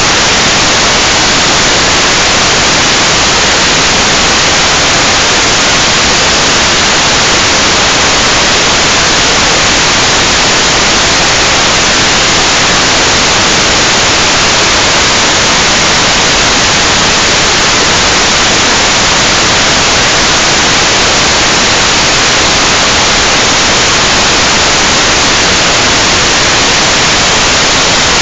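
Loud, steady hiss of static from an analog FPV video receiver that has lost the quad's video signal.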